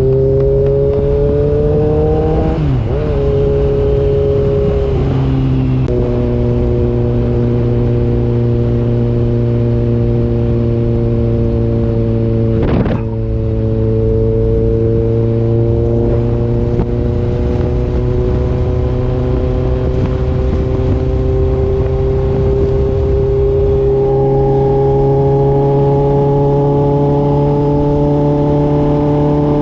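A motor vehicle's engine running under way, its pitch drifting slowly up and shifting a few seconds in as the speed changes, with one sharp click about halfway through.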